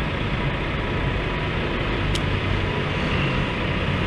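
Steady low rumble of a truck engine running close by, with a short click about two seconds in.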